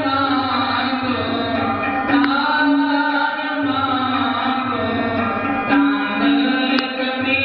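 Sikh devotional kirtan: a singer's voice gliding over instrumental accompaniment with drum strokes, a low held note coming back about every three and a half seconds.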